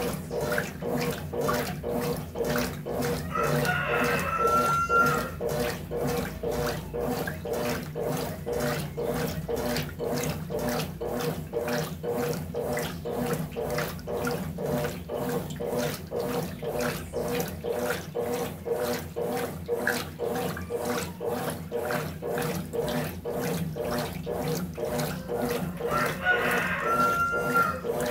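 Brastemp BWT12 12 kg top-loading washing machine in its wash cycle: the agitator swishes the clothes back and forth through soapy water at about two strokes a second, over a steady motor hum.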